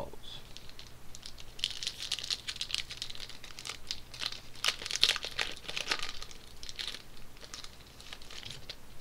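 Crinkling and tearing of a foil trading-card pack wrapper being opened by hand: a dense crackle for about five seconds, easing off near the end.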